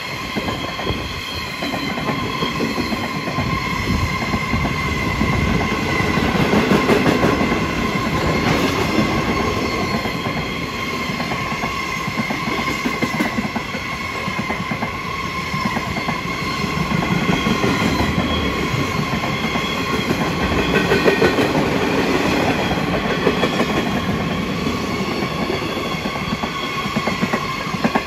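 A long train of empty freight flat wagons rolling past: steady rumble and clatter of the wheels over the rails, with a steady high-pitched whine running through it.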